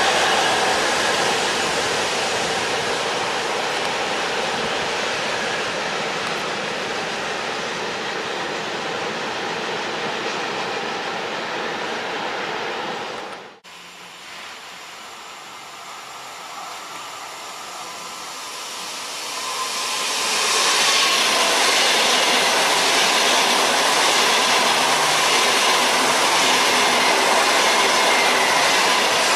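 Freight train of open coal wagons rolling past, a steady rumble of wheels on rail that slowly fades until it cuts off about a third of the way in. Then a PKP Intercity ED250 Pendolino electric high-speed train approaches, its sound growing over a few seconds, and passes at speed, loud through the last third.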